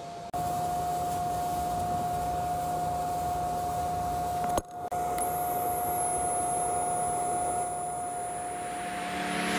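Steady mechanical hum with a steady whine, like a fan or machine running. It breaks off for a moment near the start and again about halfway. A thin high whistle comes in about halfway, and a rising swell of noise builds near the end.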